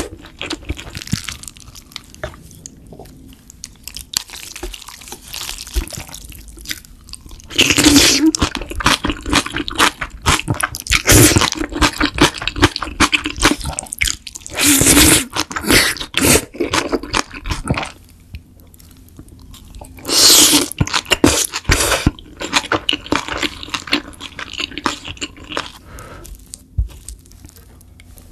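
Close-miked eating of spicy noodles: wet chewing and crunching, broken by several loud slurps as mouthfuls of noodles are sucked in.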